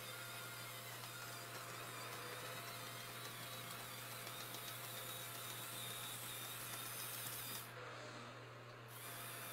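Faint steady whir of the LEGO Technic D11 bulldozer's small electric motors as it turns under joystick control, briefly falling away about eight seconds in.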